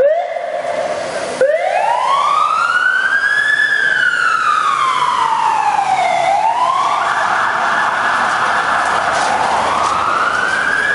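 Ambulance siren passing close. A couple of quick rising whoops open it, then a slow wail climbs, falls away and climbs again, over street traffic.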